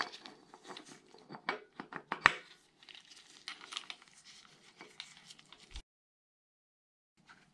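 Gloved hands handling a steel timing-chain sprocket: nitrile glove rustling with light metal clicks and clinks. There is one sharp clink about two seconds in and a dull knock just before six seconds, after which the sound cuts out completely for over a second.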